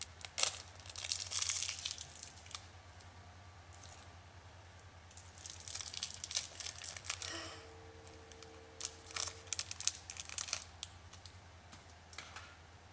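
Crinkly plastic wrapper of an LOL Surprise blind-bag packet being torn open and crumpled in the hands, in several separate bursts of crinkling with short pauses between.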